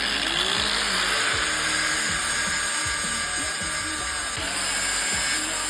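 Grinder running steadily, grinding down fresh TIG weld build-up on a carburetor's float pin post.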